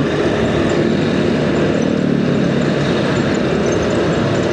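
Steady engine and road noise of a motorcycle riding in traffic, with a low, even engine drone under a wash of road and wind noise.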